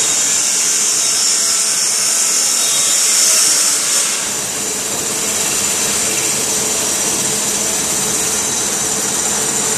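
Belt-driven metal lathe running, a steady machine hum with a strong high hiss. About four seconds in the sound shifts and a deeper rumble comes in.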